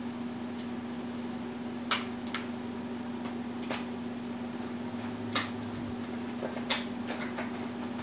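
Room tone: a steady low hum with a few scattered sharp clicks, the two loudest coming past the middle.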